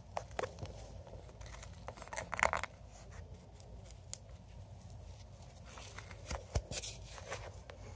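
A small pet rodent digging and burrowing through wood-shaving and paper bedding. It makes irregular rustling and scratching, with louder bursts of crinkling about two and a half seconds in and again around six to seven seconds.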